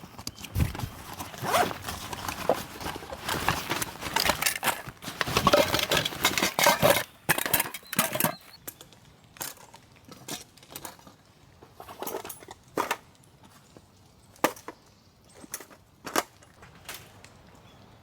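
Busy rustling and scraping of gear being handled for several seconds, then a series of separate sharp clicks and knocks.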